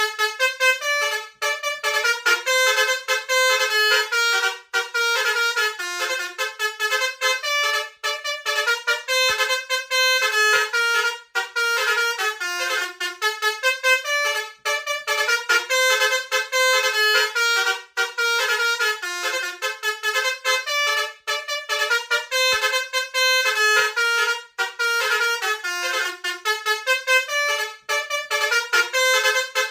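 A bus's telolet 'basuri' multi-trumpet air horn playing a fast tune, one short note after another with brief breaks between phrases.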